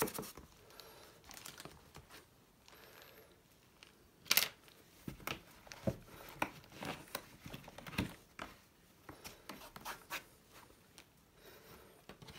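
Cleaning cloth being rubbed and crumpled against the inside of a leather briefcase: scattered rustles and scratchy rubs with small clicks, the loudest rustle about four seconds in.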